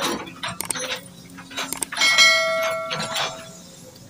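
Subscribe-button sound effect: several quick mouse clicks, then a bright notification-bell ding about two seconds in that rings for a second and a half and fades.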